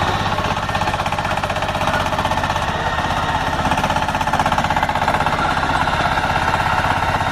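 KY100 borehole drilling rig running steadily with a rapid, even hammering rattle.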